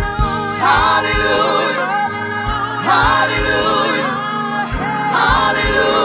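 Gospel praise team singing together over accompaniment of held chords and a low, steady beat, the voices bending and sliding between notes.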